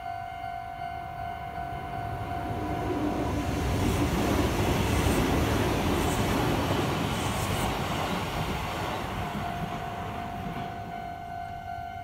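Japanese level-crossing warning bell ringing with a steady tone, drowned out mid-way as a Kintetsu electric train passes through the crossing. The train's running noise builds, is loudest about four to seven seconds in, then fades away while the bell carries on.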